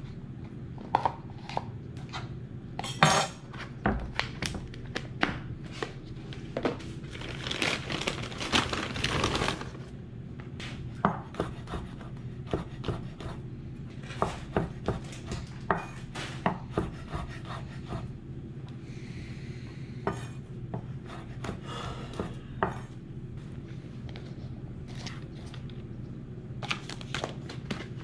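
Kitchen prep: a chef's knife knocking on a wooden cutting board as mushrooms are sliced, with irregular clinks and knocks as plastic tubs and a glass bowl are handled, and one longer scrape of about two seconds. A steady low hum runs underneath.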